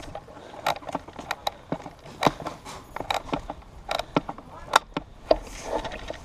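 Scattered airsoft fire: irregular sharp cracks and clacks, single shots and BB hits rather than a steady burst, some much louder than others.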